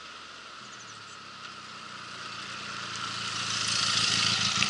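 Benelli TRK 502 X motorcycle's parallel-twin engine running at a steady note as the bike approaches and passes close by, growing louder toward the end along with a rising hiss.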